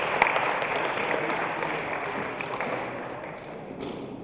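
Audience applause dying away: dense clapping that thins out and fades over about three seconds.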